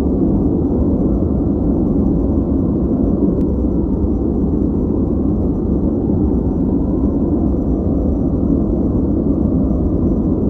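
Steady noise-masking track: an even, deep rushing hiss weighted toward the low end, with no changes.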